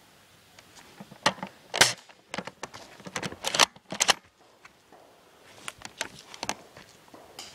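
Airsoft guns and gear clattering: an irregular flurry of sharp clicks and knocks between about one and four seconds in, loudest near two seconds and again near three and a half, then a few fainter ticks.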